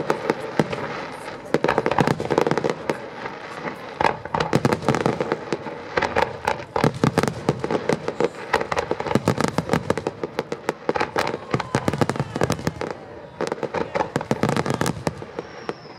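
Fireworks display: a dense barrage of aerial shell bursts, sharp bangs several a second with crackling between them. A faint falling whistle sounds near the end.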